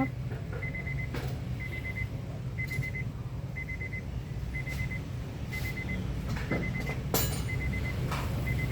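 Honda BR-V engine idling steadily after an oil change and tune-up, with a short high beep repeating about once a second and a couple of sharp clicks.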